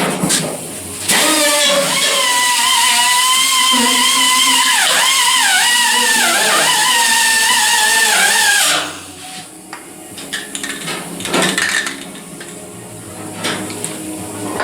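A high-speed grinder runs for about seven seconds. Its whine dips in pitch several times as it bears on the metal, then it cuts off. Lighter clanks and knocks follow.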